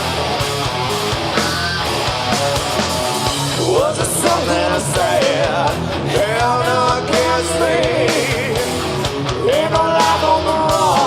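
Heavy rock band playing live: distorted electric guitars, bass and drums, with a long wavering melody line coming in about four seconds in.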